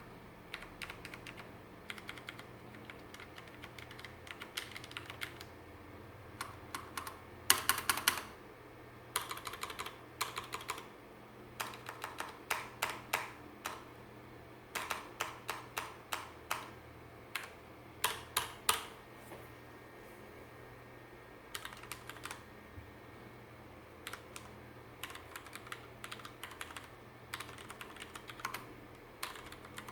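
Typing on a Ducky One mechanical keyboard with Cherry MX Red linear switches and double-shot keycaps: quick runs of keystrokes broken by short pauses, the loudest runs about a quarter and two-thirds of the way in.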